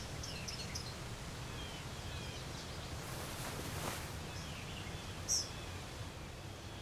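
Faint outdoor nature ambience: a low steady rumble with scattered small bird chirps, a soft whoosh a little past halfway, and one short high chirp about five seconds in.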